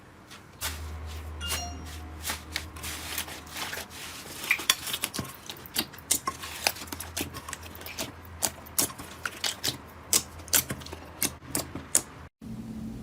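Hands working slime, making many sharp crackling clicks and pops, irregular and denser in the second half, over a low steady hum. Cuts off abruptly near the end.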